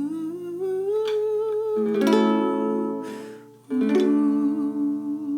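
Instrumental music: a tone slides upward, then strummed string chords ring out, with a short break just before four seconds in.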